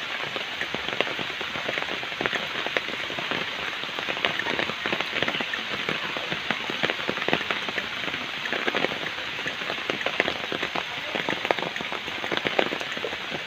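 Steady rain falling on wet ground and potted plants: a dense hiss of many small drop hits, even throughout.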